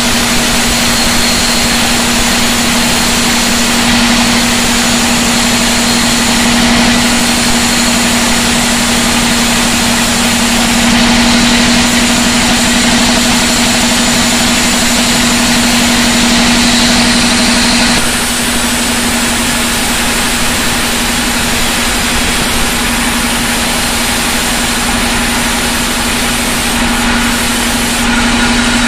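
Vertical band sawmill running steadily with a constant hum while its blade saws a large jackfruit-wood beam, with a higher whine partway through; the sound eases a little a bit past the middle.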